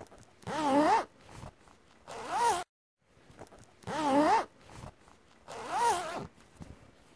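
A zipper being zipped back and forth, four quick rasping strokes with a wavering pitch, one every second and a half to two seconds.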